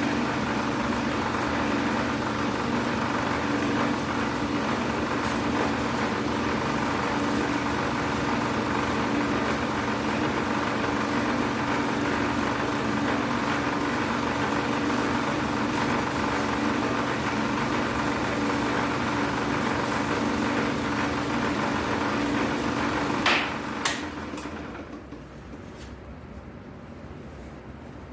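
3-axis sanding machine running steadily with a hum as it sands a guitar soundboard. About 23 seconds in come two sharp clicks, then the machine runs down and its noise falls away.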